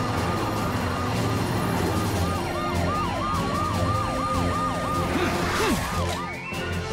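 Emergency-vehicle sirens wailing in quick rising-and-falling sweeps, at times two overlapping, over background music.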